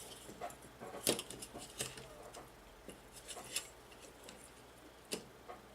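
Light clicks and taps from handling the small plastic and metal parts of a micro FPV drone during reassembly: scattered irregular clicks, the sharpest about a second in.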